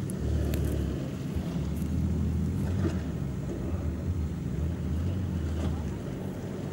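Toyota FJ Cruiser's 4.0-litre V6 engine running with a low, steady rumble as it crawls slowly through mud ruts, with some wind on the microphone.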